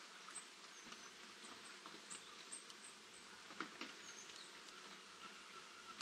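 Faint light rain pattering and dripping, scattered small ticks over a soft hiss, with one sharper tick about three and a half seconds in. A few very faint, short, high chirps of small birds.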